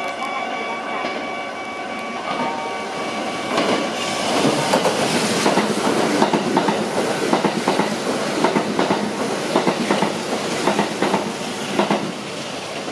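Kintetsu Urban Liner limited express electric train passing close at speed. A steady whine in the first few seconds gives way, about four seconds in, to a long run of wheels clattering over the rail joints, which eases off near the end.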